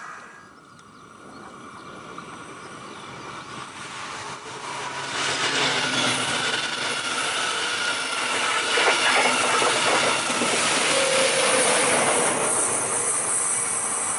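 Double-deck regional passenger train passing on an electrified line, its wheels running over the rails. The sound builds over the first five seconds and stays loud while the coaches go by.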